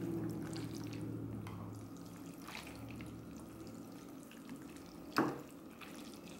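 Broth sloshing and dripping as noodles are stirred in a bowl of beef noodle soup, with one sharp knock about five seconds in.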